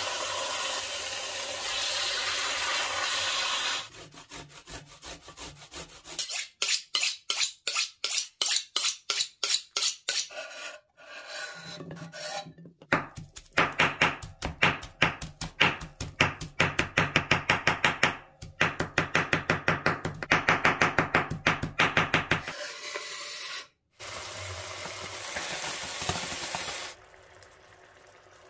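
Kitchen knife chopping fresh parsley on a wooden cutting board in two long runs of quick, even strokes, about three to four a second. A steady sizzle of chicken breasts frying in a pan comes before the chopping, and a quieter sizzle after it.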